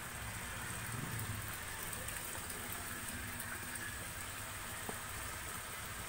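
Steady splashing hiss of water pouring from a pipe into a concrete fish tank, with a faint click about five seconds in.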